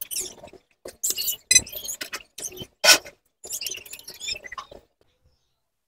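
Small irregular clicks, taps and scrapes of mounting screws and hardware being handled and fitted on an alloy windshield visor of a Honda ADV 160 scooter, with a brief squeak about a second and a half in; the handling stops about a second before the end.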